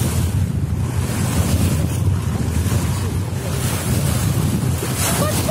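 Wind buffeting the microphone as a steady low rumble, over sea water washing against a small boat.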